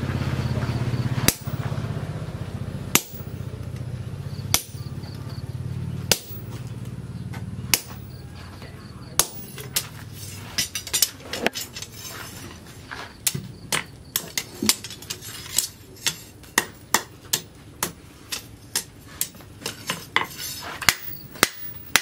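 Hand hammer striking a hot steel machete blade on a steel anvil. For about the first nine seconds there are single blows roughly every second and a half over a low steady hum. After that come quicker, irregular strikes, several a second.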